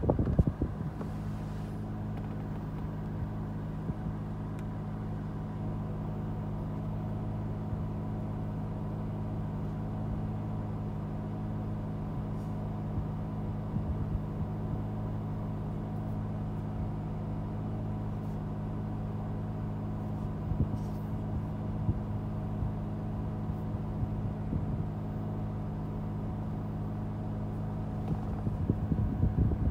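Acura NSX's 3.5-litre twin-turbocharged V6 idling steadily, heard from inside the cabin, settling to an even idle about a second in after a louder start.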